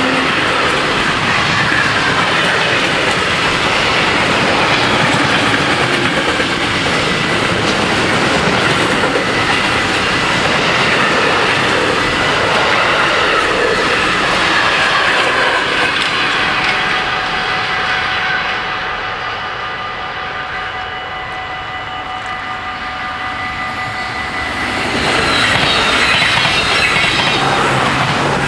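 A train passing over a level crossing, its wheels clattering on the rail joints. The passing noise is loud for about sixteen seconds, then eases off as a few steady high ringing tones hang on, and swells up again near the end.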